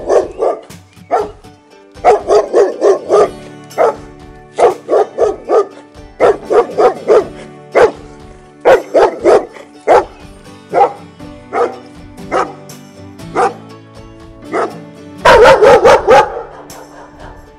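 Doberman pinscher barking repeatedly in quick volleys of three to five barks, with the loudest, densest run of barks about fifteen seconds in.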